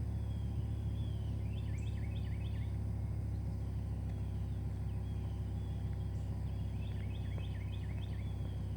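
2008 BMW M6's V10 idling with a steady, even low hum and no revving, while a bird sings a quick repeated chirping phrase twice, about two seconds in and again near the end.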